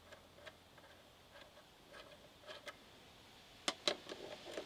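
Light, irregular metallic clicks from a hand tool working on a tractor clutch pressure plate, with two sharper clinks a little under four seconds in.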